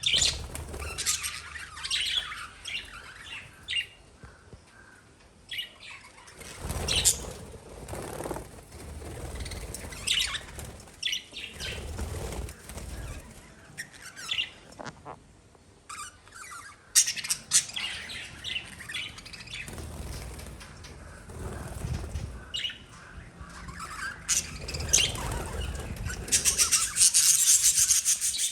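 Pet lovebirds chirping in short, sharp calls, with bursts of wing flapping now and then. Near the end the chirps come in a fast, dense chatter.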